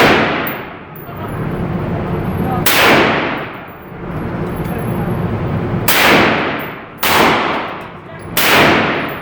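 Gunshots at a shooting range: about five shots spaced irregularly, one to three seconds apart. Each is sudden and followed by a long echoing tail.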